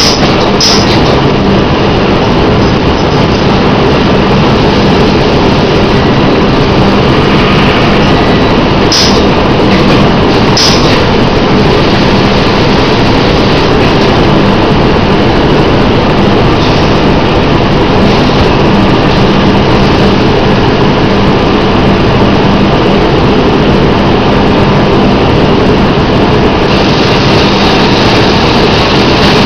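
Semi-automatic animal feed bagging machine and its surrounding plant machinery running, a loud, steady mechanical drone with a constant hum. A few short sharp clacks come through, two of them about nine and eleven seconds in.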